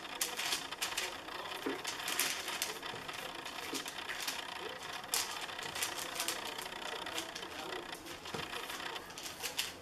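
Hands pressing and patting soft ground-chicken pizza dough flat on a sheet, with a steady crackling rustle and many small clicks.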